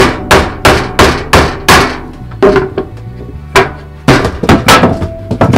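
Rubber mallet striking a Hobie Mirage GT kayak pedal drive to tap a pin out of its spine. Sharp knocks come about three a second for the first two seconds, then a few scattered blows with a quick cluster near the end.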